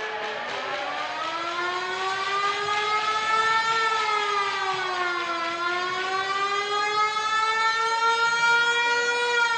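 Goal siren sounding after a goal, one long continuous wail. Its pitch rises, dips about five and a half seconds in, then climbs again.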